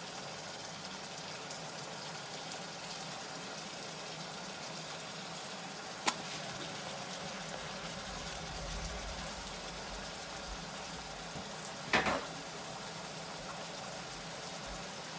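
Steady sizzling of ground beef and onions frying in a wok, with a large pot of noodle water at the boil behind it. A sharp click about six seconds in and a louder knock around twelve seconds stand out over it.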